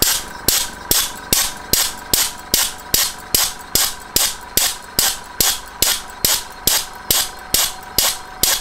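Small single-cylinder model hit-and-miss engine running on compressed air: an even beat of about two and a half sharp clicks a second, each followed by a puff of exhausting air, over a steady faint whistling hiss of air leaking past its cast iron piston rings.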